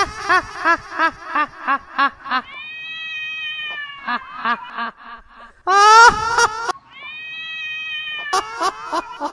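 Electronic keyboard playing a tune with a cat-meow voice: runs of short meow notes about three a second, alternating with longer held meows at steady pitch, and one louder sliding meow about six seconds in.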